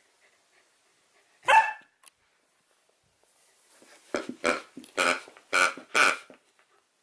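A Samoyed puppy gives one sharp bark about a second and a half in, a demand for her dropped toy to be picked up. Near the end comes a quick run of five short pitched sounds as she bites a plush porcupine toy held to her mouth.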